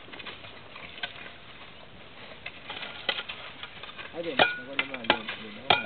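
Hoes and shovels scraping and striking dry dirt in irregular strokes. Voices talking break in from about four seconds in.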